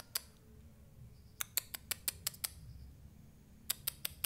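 Young, newly wild-caught scarlet minivet (sepah raja) in a cage starting to call: short, sharp, very high chips in quick runs, one about a second and a half in and another near the end.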